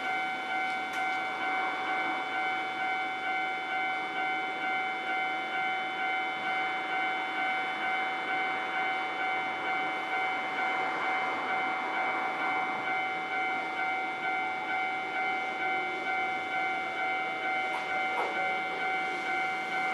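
Japanese railway level-crossing warning bell ringing continuously: an electronic ding repeated in an even rhythm, about one and a half strikes a second.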